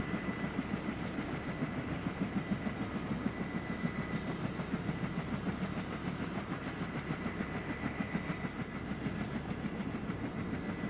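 Turbine helicopter idling on the ground after landing: the two-blade main rotor beats in a steady rapid rhythm of low thumps over a constant high turbine whine.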